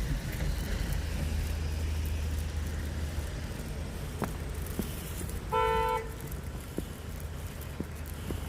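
Low steady rumble of road traffic for the first three seconds, then a single short car horn toot, about half a second long, a little over five seconds in.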